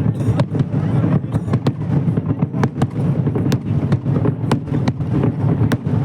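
Fireworks going off in quick succession: many sharp cracks at an uneven pace over a continuous low rumble of bursts.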